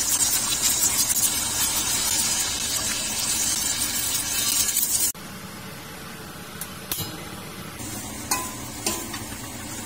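Egg frying in hot oil in an aluminium wok, a loud steady sizzle. About five seconds in the sizzle cuts off abruptly, and a metal ladle stirs fried rice in the wok, with a few sharp clinks against the pan.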